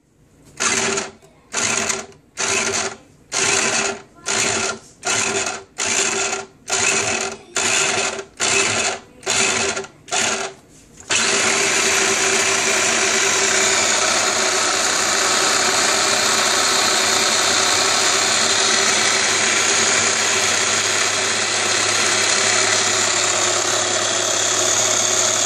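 Electric mini food chopper chopping peeled garlic cloves: about a dozen short pulses of the motor, roughly one a second, then run continuously from a little before halfway through, mincing the garlic fine.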